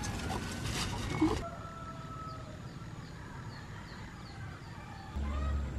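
Rustling for about a second and a half, ending in a sharp knock. Then small birds chirp faintly and chickens call in the background.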